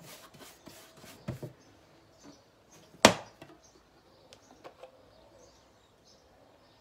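Short taps and scrapes of a paintbrush working anti-woodworm liquid into a wooden drawer, then one sharp, loud knock about three seconds in, followed by a few faint clicks as the metal tin of treatment is handled.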